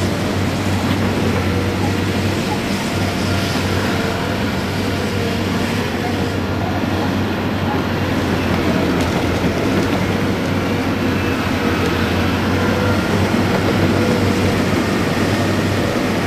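Steady diesel engine noise of heavy construction machinery: a loaded Mercedes-Benz tipper truck driving slowly over rough ground, with other site machines running, a deep even hum under it.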